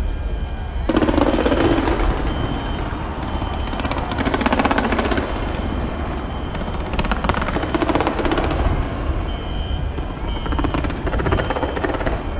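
Large fireworks display: volleys of rapid crackling bangs in four waves a few seconds apart, over a steady low rumble.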